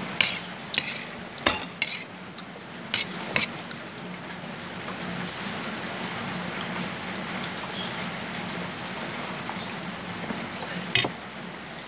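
Spoons and forks clinking against plates as people eat: several sharp clinks in the first few seconds and one more near the end, over a steady background hiss.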